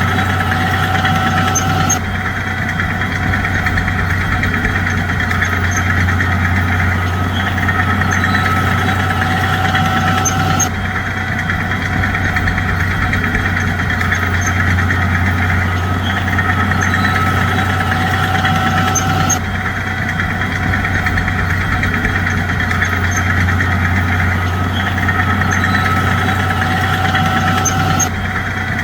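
A bulldozer's diesel engine running steadily with a constant low drone. The same stretch of engine sound repeats about every nine seconds.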